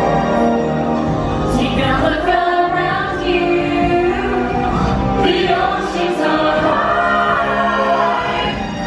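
Stage musical song: several voices singing together over orchestral music.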